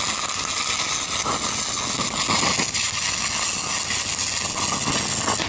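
Stick-welding arc from a 1/8-inch 6010 electrode at 75 amps, running as a steady sizzle while a tack weld is laid in the root gap of a small steel pipe joint. The arc breaks off suddenly near the end.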